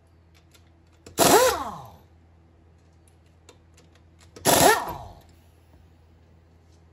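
Pneumatic impact wrench running in two short bursts about three seconds apart, each spinning up and winding down in pitch, as it loosens the wheel's lug nuts.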